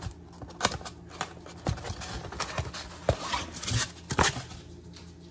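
Packaging being handled and unwrapped: irregular crinkles, taps and knocks of paper and cardboard, over a low steady hum.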